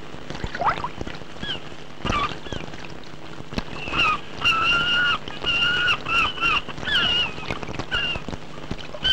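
Gulls calling: a few short, falling cries, then a run of longer, level calls in the middle, over a steady low hum and the wash of the sea.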